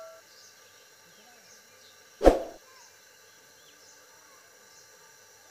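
Faint bird chirps in the background, with one short, sharp thump a little over two seconds in. The last of a bell chime fades out at the very start.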